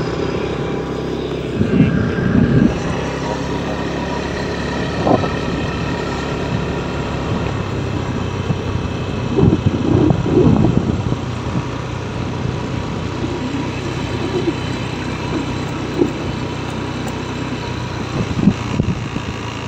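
Motorcycle engine running steadily while riding along a road, heard from on board, with a few short louder thumps along the way.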